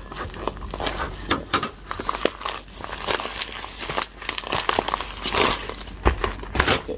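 Plastic coffee-bean bag and its wrapping crinkling and rustling as it is cut open with scissors and handled: a string of irregular crackles, loudest near the end.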